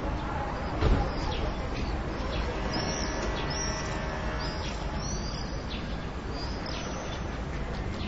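Swallows twittering in quick, short high chirps over a steady low background rumble, with one dull thump about a second in.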